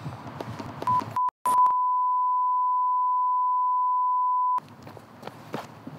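Censor bleep: a pure, single-pitched test tone. It comes as a few short bleeps, then holds steady for about three seconds and cuts off suddenly. All other sound is blanked out while it plays.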